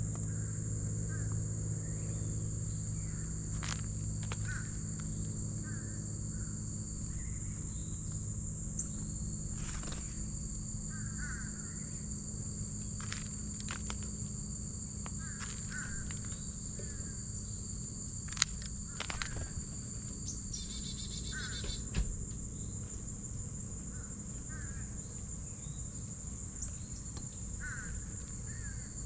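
Outdoor ambience with a steady high-pitched insect drone throughout. Short bird calls repeat every couple of seconds, with a few sharp clicks. A low engine-like hum fades away over the first several seconds.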